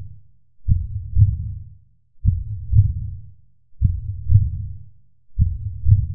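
Slow heartbeat, a low double thump (lub-dub) repeating about every one and a half seconds, four beats in all.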